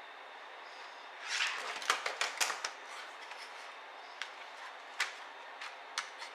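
Small sharp clicks and a brief rustle of laptop parts being handled during disassembly: a quick cluster of clicks about a second in, then single clicks spaced about a second apart, over a faint steady hiss.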